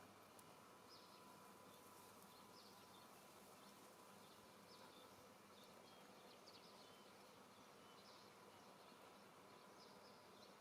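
Near silence: faint background hiss with a thin steady hum and scattered faint high chirps.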